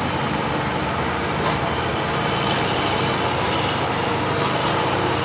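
A motor vehicle's engine running steadily, with a constant rumble and a faint high whine over it.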